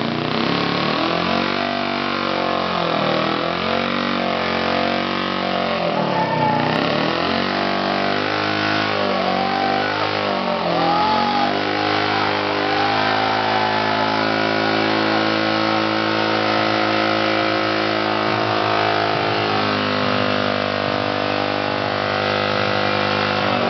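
Motorcycle engine revved hard during a stationary burnout, its rear tyre spinning on dirt. The revs swing down and up again and again, then hold steady and high from about halfway through.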